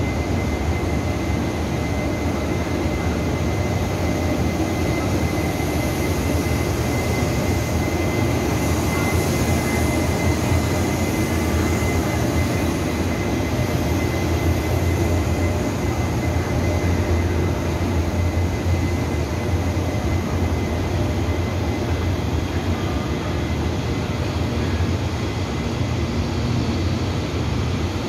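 Locomotive-hauled passenger train rolling slowly through an underground station: the Taiwan Railway electric locomotive's motors and wheels give a loud, steady rumble that echoes off the enclosed platform. A thin, steady whine runs over it through the first half.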